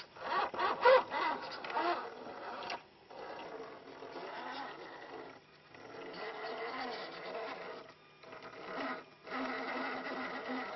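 Electric motor and gearbox of an RC scale Jeep Wrangler rock crawler whining as it drives over rocks in stretches, cutting out briefly about three times.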